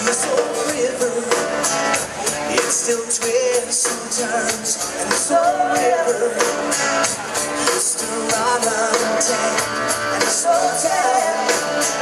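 Live band playing amplified electric guitars, bass and drum kit, with a singer's voice wavering over the band.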